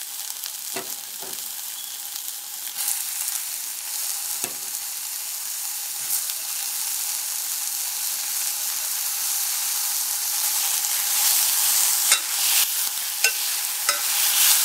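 Chopped tomatoes and onions sizzling in hot oil in a stainless steel pot, stirred with a steel ladle that clinks and scrapes against the pot now and then. The sizzle grows louder in the second half, with a quick run of clinks near the end.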